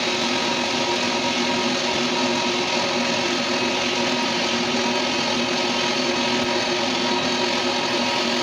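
Machine tool, most likely a metal lathe, running steadily: a constant hum with several held tones over an even hiss.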